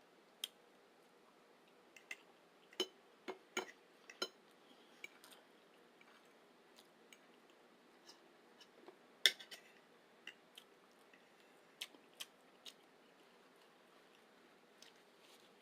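Close-miked eating sounds: chewing with scattered sharp clicks and smacks, a cluster of them about three to four seconds in and the loudest just past nine seconds.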